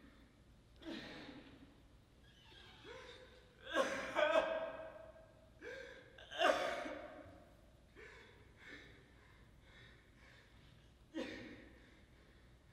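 A person's voice gasping and crying out in a string of breathy bursts, the loudest about four and six and a half seconds in, each of those two ending in a short held tone.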